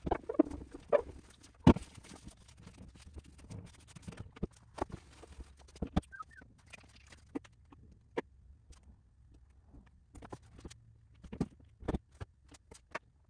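Paper towel rubbing over a board's deck, followed by scattered light taps and knocks as parts are handled on the board. The sharpest knock comes a little under two seconds in.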